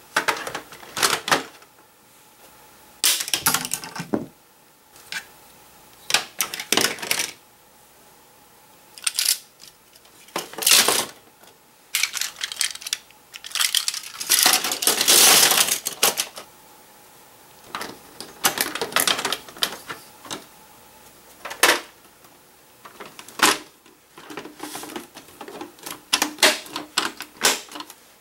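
Hard plastic toy track pieces and launcher parts clattering and clicking as they are packed into a plastic storage crate and its sides folded shut. Irregular bursts of rattling, the longest about halfway through.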